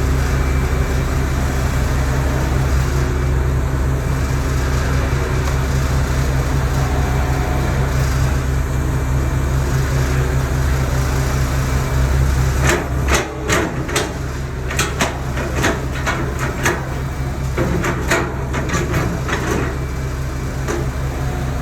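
Heavy construction machine's diesel engine running steadily with a low drone. About halfway through, a run of sharp metallic knocks and clanks sounds over it for several seconds.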